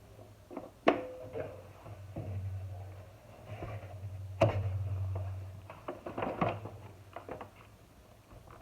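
Scattered sharp knocks and clicks, a cluster of them about two-thirds of the way through, over a low steady hum.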